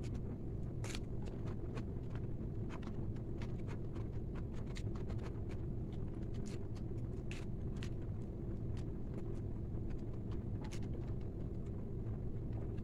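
Irregular small clicks and smacks of someone eating chicken biryani, over a steady low background rumble.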